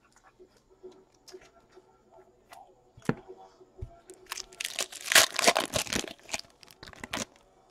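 A foil trading-card pack being torn open, its wrapper crinkling in a dense crackle that lasts about three seconds in the second half. A single click comes a little earlier.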